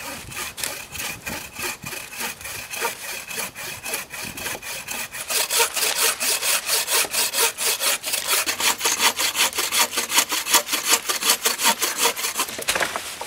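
Wooden Adventure Sworn bucksaw cutting through a dense ironwood log with quick, even back-and-forth strokes. The strokes get louder from about five seconds in and stop just before the end.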